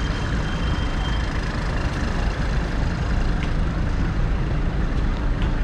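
Steady street traffic noise from a queue of cars and a minibus idling and creeping along, a constant low rumble with no single event standing out.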